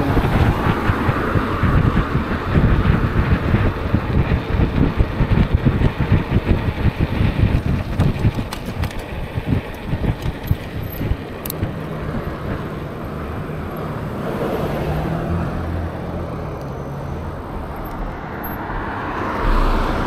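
Wind buffeting the microphone of a moving e-bike, mixed with car traffic going by close alongside. About twelve seconds in the buffeting dies away as the bike slows, leaving a steadier traffic hum with a car engine running nearby.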